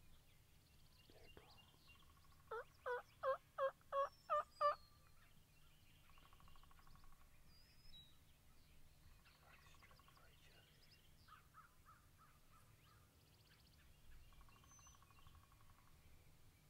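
A run of seven loud turkey yelps, about three a second, with fainter turkey clucks and chatter before and after.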